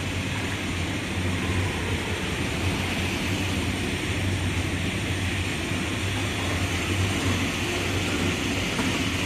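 Steady workshop machinery noise: a constant low hum under an even, wide hiss, with no distinct knocks or changes.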